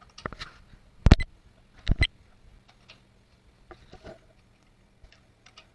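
Sharp clicks and knocks from lug nuts being handled by hand at a car wheel's hub: one loud knock about a second in, a quick double knock about a second later, then a few faint ticks.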